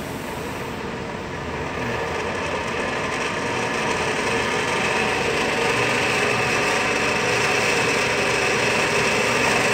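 Vacuum pump of a CNC router's vacuum hold-down table switched on and running up: a steady mechanical running noise with a high whine that grows louder over the first five seconds or so, then holds steady.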